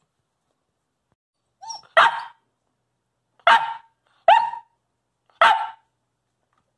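Young Coastal Wolf puppy barking four times, about a second apart, the first bark led in by a short whine, to ask for a treat without being told to speak.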